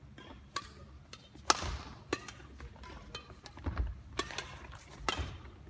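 Badminton rally: rackets striking the shuttlecock in sharp cracks every second or so, the loudest about one and a half seconds in, ringing in the hall. A few low thuds of feet landing on the wooden court come between the hits.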